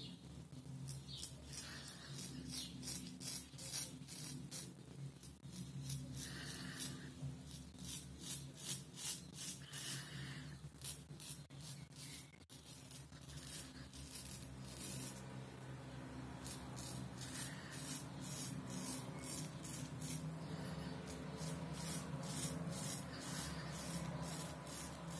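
Kamisori-style straight razor scraping through lathered beard stubble on the cheek in quick short strokes, a dry rasp with each stroke, in runs of several strokes broken by brief pauses. The shave is rough, far from the smoothness of an English straight razor.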